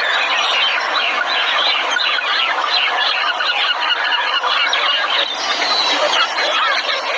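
A dense chorus of many birds calling at once: a continuous jumble of overlapping chirps, trills and harsher calls.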